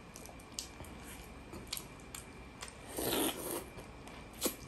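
Balut eggshells being cracked and picked off with the fingers in scattered small ticks, then a slurp about three seconds in as the broth is sipped from the opened egg.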